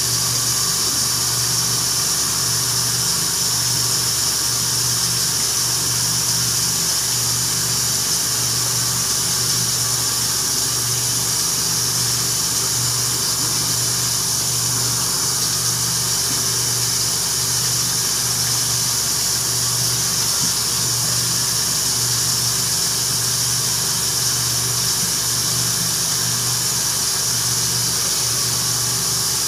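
A steady electric motor hum with a strong high hiss, unchanging throughout.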